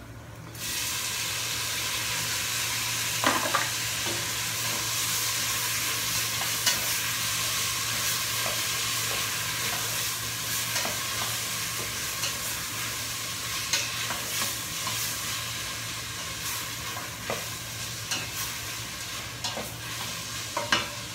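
Chopped tomatoes dropped into hot oil with sautéed onion, garlic and ginger, sizzling loudly from about half a second in and easing slightly as they cook. A spatula stirs them in a stainless steel pot, with scattered clicks and scrapes against the pot.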